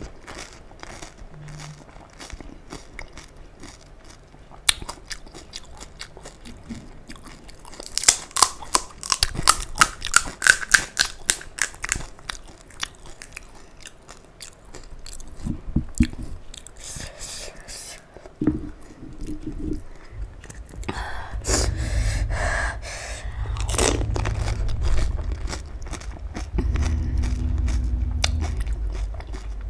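Close-miked crunching and chewing of crisp panipuri shells. A rapid run of crunches comes about a third of the way in, followed by wetter, heavier chewing.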